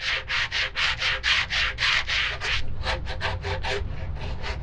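Hand sanding of an epoxy-and-fiberglass rudder repair with sandpaper on a sanding block: a quick rasping back-and-forth, about four strokes a second. The strokes turn quicker and shorter after about two and a half seconds and are quieter near the end.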